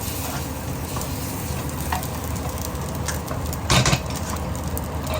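Kimchi sizzling as it is fried in a hot wok, with one louder clank about three quarters of a second past the midpoint.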